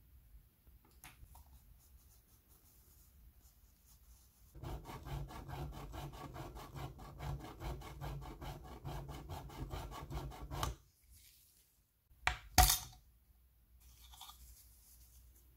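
A gloved fingertip rubbing and scraping fast along the edge of a small painted-metal signal-lamp housing, in an even run of quick scrapes for about six seconds that stops abruptly. Then two sharp metal clicks about half a second apart, the loudest sounds, and a faint scratch of handling near the end.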